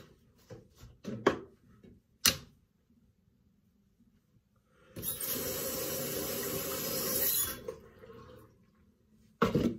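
Bathroom sink tap running for about two and a half seconds, starting about five seconds in, then shut off. Before it come two sharp clicks, and another sharp knock comes near the end.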